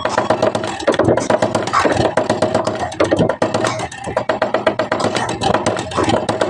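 Background music with a fast, steady beat.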